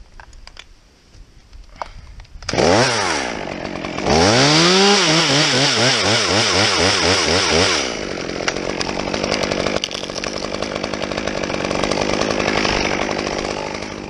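Small two-stroke top-handle chainsaw blipped briefly about two and a half seconds in, then run up to full throttle and held there, its pitch wavering as it cuts through a limb. Near the eight-second mark it drops back to a steady, lower running idle.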